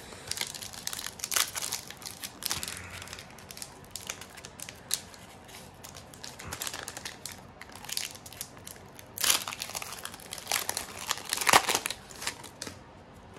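A foil Pokémon trading-card booster pack crinkling and tearing open in the hands: a run of crackling rustles, loudest about three-quarters of the way through.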